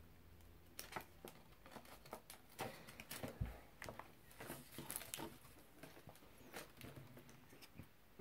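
Faint, irregular taps and rustles of a child's hands and sleeve working an iPad's touchscreen and its case, with one dull thump about three and a half seconds in.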